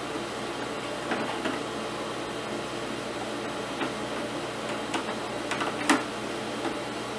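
Screwdriver working screws out of a plastic heater grille housing: a handful of small clicks and taps, the loudest about six seconds in, over a steady background hiss.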